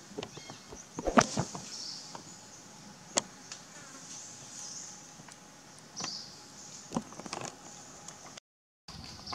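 Insects buzzing high and steady, over scattered sharp clicks and crackles, the loudest a cluster about a second in. The sound cuts out completely for a moment near the end.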